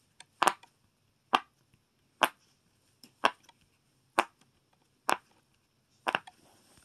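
Silicone pop-it fidget toy's bubbles pressed through one at a time with a finger: a sharp pop about once a second, about seven in a row.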